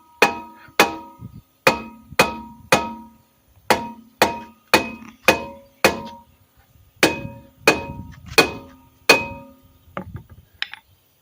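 Hammer striking a Prius's steel rear brake drum, about fifteen ringing metal blows in quick groups with short pauses, to knock the stuck drum loose.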